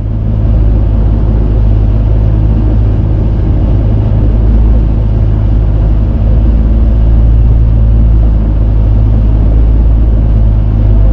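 Outrigger fishing boat's inboard engine running steadily while under way, a loud, even low drone.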